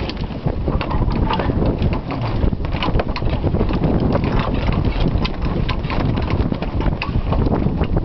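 Wind buffeting the microphone aboard a sailing schooner, with many quick, irregular snaps and clicks over it.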